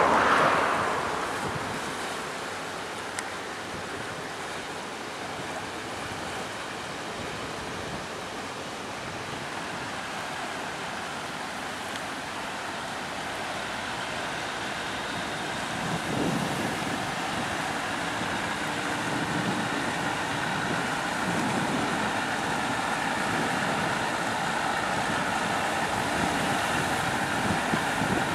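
Passing motor cargo barge: a loud rush of water and wind right at the start, then steady noise of water moving along the hull. In the second half this grows slowly louder, and the hum of the barge's diesel engine comes through as the stern draws near.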